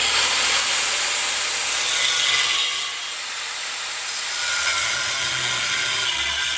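Power grinder working on a steel frame horn. It starts abruptly and runs steadily, easing slightly about halfway through.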